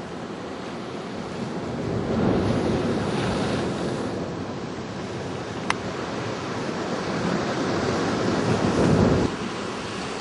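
Ocean surf washing in, with wind buffeting the microphone; two louder surges of water, about two seconds in and near the end, the second cutting off suddenly. A single short click in the middle.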